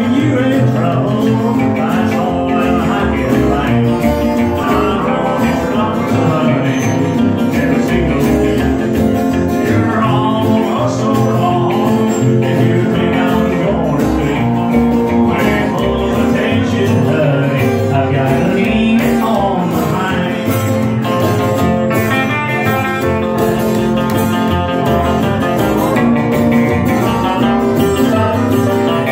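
Live country rockabilly band playing at a steady level: upright bass, strummed acoustic guitar, electric lead guitar and pedal steel guitar.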